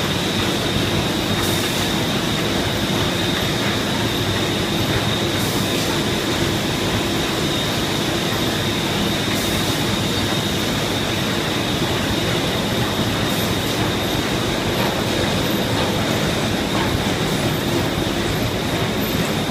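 Film laminating machine running steadily in production: a continuous mechanical din with a steady high whine over it.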